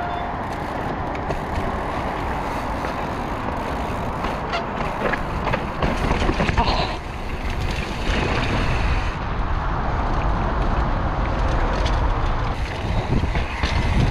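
Mountain bike rolling fast along a dirt singletrack and onto rock: tyre noise on dirt with clicks and rattles from the bike, and wind buffeting the microphone. It gets louder about six seconds in.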